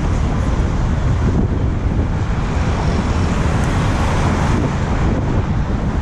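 Wind buffeting a GoPro's microphone as a bicycle rides along, a steady low rumble with traffic noise mixed in.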